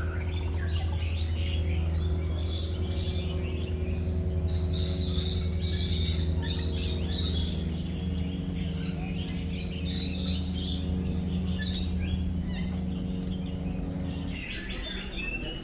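Aviary songbirds calling and chirping in several loud runs of high, rapid notes, over a steady low mechanical hum that stops near the end.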